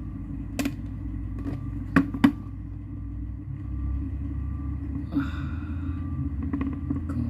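Sharp clicks and knocks from unboxing and handling the packaging and its parts, with two loud clicks close together about two seconds in, over a steady low rumble.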